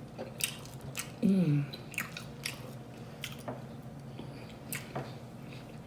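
Close-up chewing and biting with a string of sharp, wet mouth smacks. A short hum with falling pitch comes about a second in.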